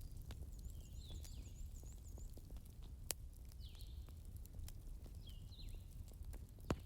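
Wood fire crackling over a low steady rumble, with two sharp pops, about three seconds in and near the end. Short high chirping calls repeat above it, with a quick run of repeated notes in the first two seconds.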